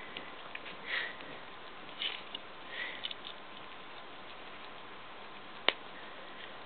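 Pomeranian sniffing and licking at a T-bone steak bone, with a few short snuffling sniffs in the first half. A single sharp click comes near the end.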